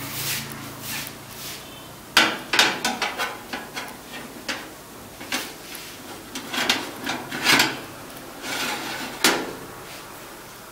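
Kitchen clatter: a series of irregular sharp knocks and scrapes from cookware being handled, beginning about two seconds in and stopping shortly before the end.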